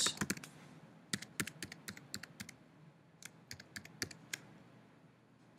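Typing on a computer keyboard: quick runs of key clicks in three bursts with short pauses between them, stopping a little over four seconds in.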